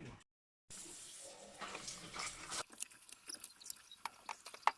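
A brief dead gap, then about two seconds of rustling, then a string of small sharp clicks and knocks from things being handled, with one louder click near the end.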